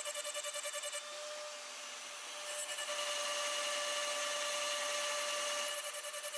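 CNC spindle with a small end mill slotting through an aluminium block in trochoidal passes, cutting in an even pulse about five times a second over a steady spindle whine. About a second in, the pulsing gives way to a steady cut, which grows louder from about two and a half seconds; near the end the pulsing returns.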